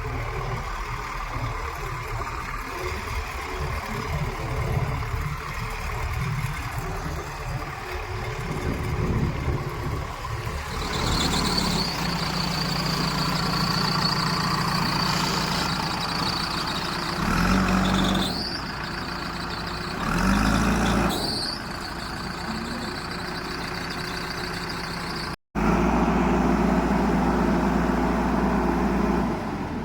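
Heavy diesel engine running under load. It revs up briefly twice around the middle, and a steady high whine sits over it in the second half. The sound breaks off for an instant about three quarters of the way through and picks up again at a steady, louder run.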